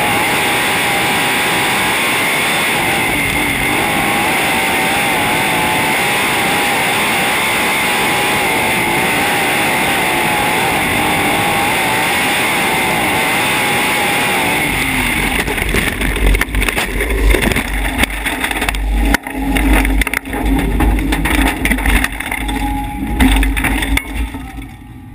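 Onboard sound of a sprintcar's V8 engine running hard at racing speed, a steady, loud engine note. From about fifteen seconds in it turns uneven, with heavy low rumbling and knocks and the loudness swinging up and down.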